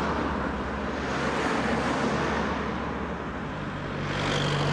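Cars passing by on an asphalt road: a steady rush of tyre and engine noise, with a low engine hum swelling near the end.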